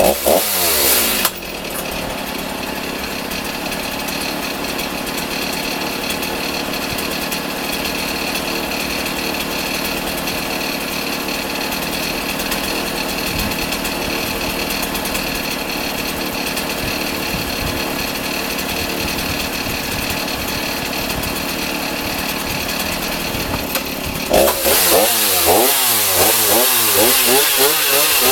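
Stihl MS 390 two-stroke chainsaw: a cut ends about a second in and the saw drops to a steady idle. Near the end it revs up again, its pitch wavering up and down as it goes back under load.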